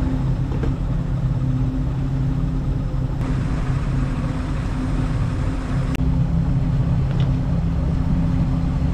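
Motorboat engine running steadily under way, a low even hum over the rush of water and wind. The hiss brightens a little about three seconds in.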